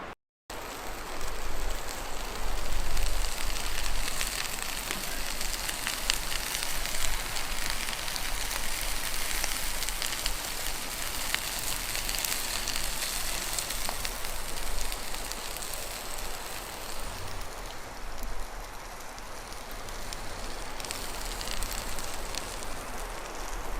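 Wood campfire crackling steadily, with many small pops.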